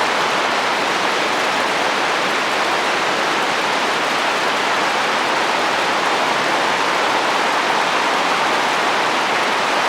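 Rain falling steadily on a roof in a windy rainstorm, an even, unbroken hiss.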